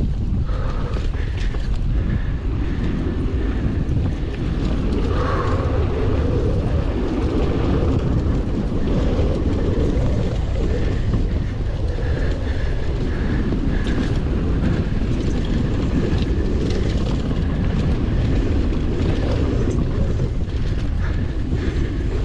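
Mountain bike ridden along a dirt cross-country trail: a steady rush of wind on the microphone and tyre noise, with scattered light knocks and rattles over bumps.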